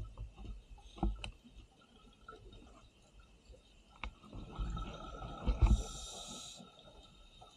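Underwater scuba breathing sounds, sped up: the hiss and rumble of a regulator with bubbles, swelling to a long noisy exhalation a little past the middle, with scattered low thumps and a few sharp clicks.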